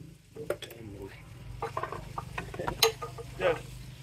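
Metal clinks and knocks on a ZF truck gearbox being dismantled, with one sharp hammer-on-metal strike about three seconds in.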